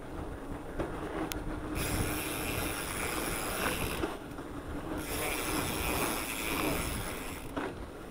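Mountain bike rolling along a dirt trail: wind buffeting the microphone, tyres on dirt and the bike rattling over the ground. A higher hiss comes in for two stretches of a couple of seconds each.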